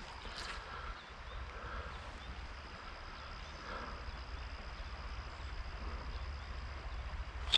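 Steady river ambience: an even hiss of flowing water under a low, steady rumble, with a faint high whine held throughout and a single sharp click at the very end.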